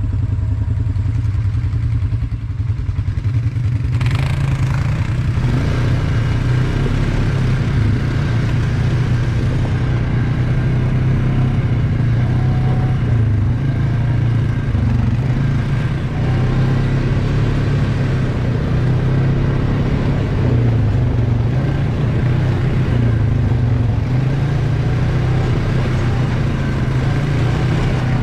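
ATV (quad) engine running steadily under way on a dirt trail. About four seconds in, a rougher rattling noise joins the engine and stays.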